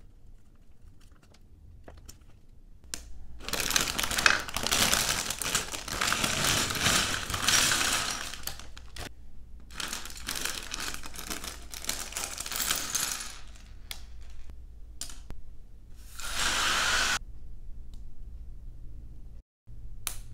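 A plastic LEGO parts bag crinkling as it is torn open and its pieces tipped out onto a wooden table. The rustling and clattering come in two long stretches, then a shorter burst of crinkling.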